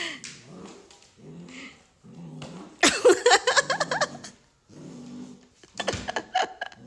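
Two dogs, a Samoyed puppy and a Shiba Inu, growling at each other in tug-of-war play over a plush toy: repeated low growls, with a louder, higher-pitched outburst about three seconds in and a few sharp clicks near the end.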